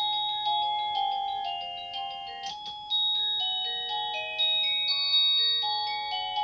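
Zemismart wireless doorbell's plug-in sounder playing one of its electronic chime tunes through its small loudspeaker: a melody of clean beeping notes, a few a second, with a short break about two and a half seconds in before the tune carries on.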